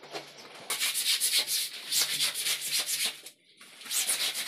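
Wet clothes being scrubbed by hand on a floor: quick back-and-forth rubbing strokes of fabric, about four or five a second, with a brief pause about three seconds in.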